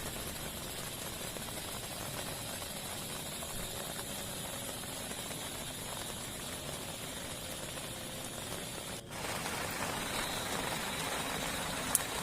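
Steady heavy rain, an even hiss of falling water. It drops out for a moment about nine seconds in and comes back slightly louder, and a single sharp click sounds just before the end.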